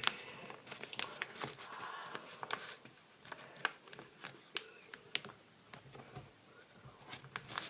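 A sheet of paper being folded and creased by hand: soft rustling and scattered sharp little ticks.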